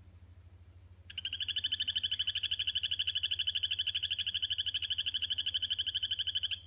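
Male Kokoe poison frog (Phyllobates aurotaenia) giving its territorial call: a high-pitched, rapid trill of evenly spaced pulses. It starts about a second in, holds steady for about five and a half seconds, and stops abruptly.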